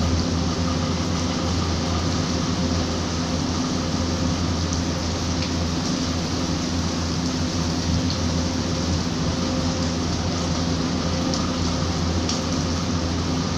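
Steady rain falling, an even hiss with a few faint scattered ticks, over a steady low hum.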